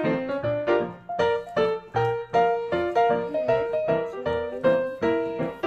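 Background music: a bright piano or keyboard melody of short, evenly spaced notes.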